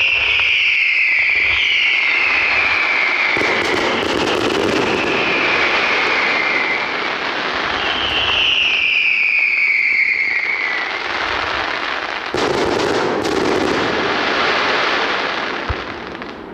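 Fireworks display: dense crackling and hissing, with several whistles that fall in pitch. Sharp bangs come about four seconds in and again around twelve seconds, and the sound dies away near the end.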